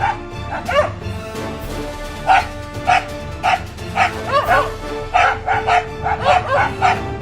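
Dog barking repeatedly, short sharp barks often in quick runs of two or three, over steady background music.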